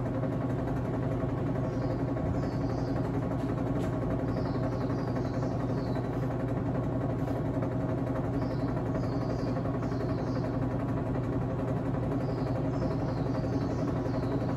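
Washing machine running a spin cycle with a steady motor hum, after its suspension rods have been replaced. Faint high chirps come in short clusters about every four seconds.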